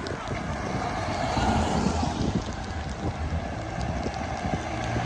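Steady vehicle rumble with wind noise on the microphone.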